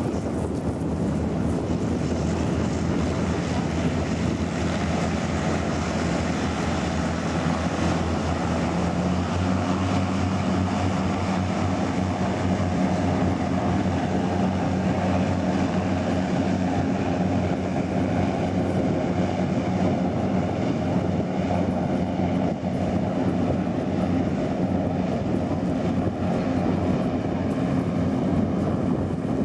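Passenger hovercraft with twin ducted propellers running at speed across the water: a loud, steady drone of engines and propellers with a low hum, under an even hiss.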